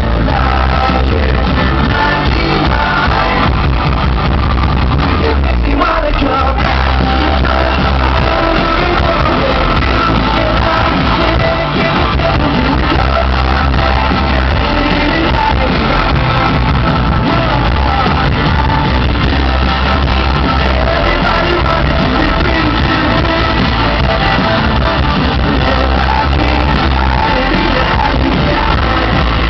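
Live pop-rock band playing with a male lead singer, loud and continuous, heard from within the audience with a heavy, boomy low end.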